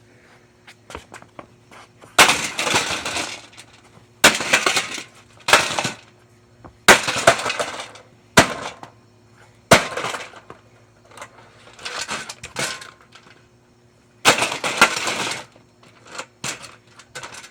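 Holmes box fan's brittle plastic being smashed: repeated loud crashes of cracking, shattering plastic every second or two, with smaller clatters between them and a faint steady hum underneath.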